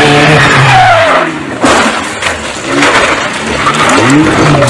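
A car engine revving hard over tyre squeal and skidding, loud and close. The engine pitch falls about a second in and climbs again near the end, with a sudden loud rush of noise a little under two seconds in.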